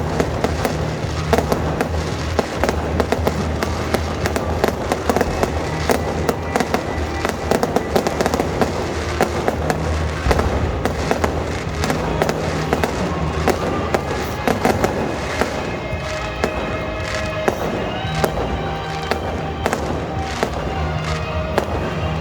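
Fireworks going off in a rapid, continuous run of bangs and crackles, with music playing underneath.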